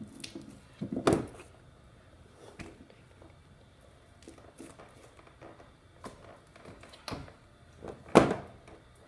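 Plastic slime containers being handled: a sharp knock about a second in and a louder one near the end, with faint clicks between.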